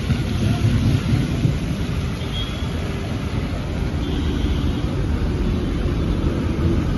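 Muddy floodwater rushing along a roadside channel: a steady, noisy rush with a deep rumble underneath.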